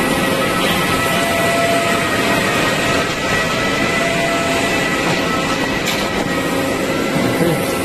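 Industrial machine running steadily under test after being wired up: a loud, even mechanical noise with several faint, steady whining tones on top.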